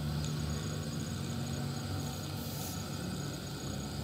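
Diesel switcher locomotive's engine running in a steady low drone as it moves slowly toward the listener.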